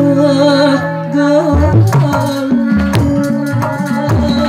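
Sundanese jaipong dance music: a held, wavering melody line over a low drone, joined about a second and a half in by deep kendang hand-drum strokes.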